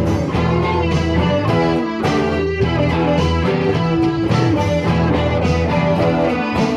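Band music led by guitar, over steady low bass notes.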